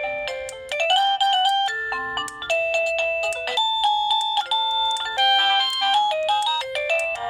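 Plug-in wireless doorbell receiver playing one of its electronic chime melodies: a fast run of bright notes that start sharply, one after another, without a break.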